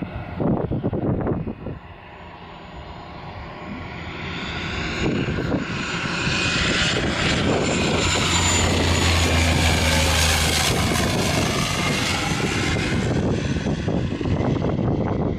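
A floatplane's engine and propeller draw closer, growing steadily louder over several seconds. The plane passes close with a low propeller hum about halfway through, then keeps running loud. Wind buffets the microphone at the start.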